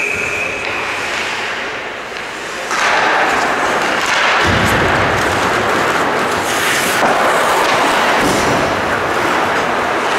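Ice hockey rink game noise: a referee's whistle blast cuts off about half a second in. The rink noise then rises sharply at about three seconds and stays loud as an even rushing noise, with a low rumble joining about four and a half seconds in.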